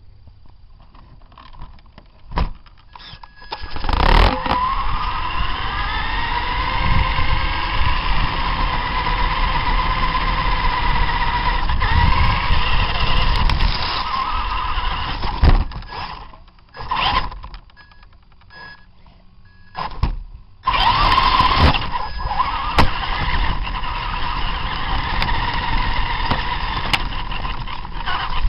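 Radio-controlled monster trucks' motors whining as they run, rising in pitch as they spin up about four seconds in. The sound cuts off briefly a few times, with short bursts around the middle, and picks up again strongly a little past two-thirds of the way through.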